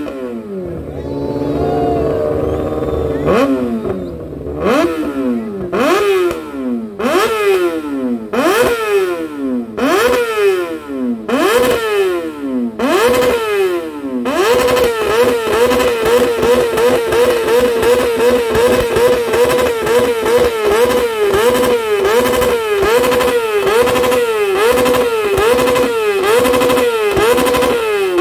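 A motorcycle engine revved hard over and over, each rev shooting up and then sinking back, about once a second. About halfway through it is held at high revs with quick, shallow blips of the throttle.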